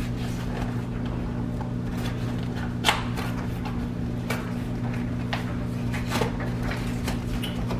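Scattered clicks and rustles of a brownie-mix package being handled and opened, the sharpest about three seconds in, over a steady low hum.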